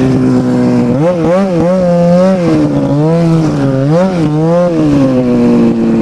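Ski-Doo MXZ 700's two-stroke twin engine running under throttle, its pitch steady at times and rising and falling with quick throttle changes about a second in and again about four seconds in. The exhaust is damaged and unrepaired, and the rider says it sounds pretty terrible.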